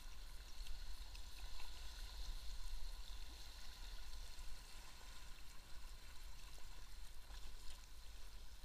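Fast-flowing river water rushing and lapping around the bow of an inflatable kayak: a steady, even rush with a low rumble underneath.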